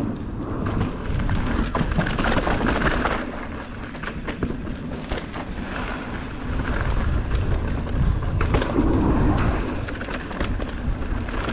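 Mountain bike rolling down a bike-park trail: a continuous rush with a deep rumble that swells and fades, with scattered clicks and knocks from the bike.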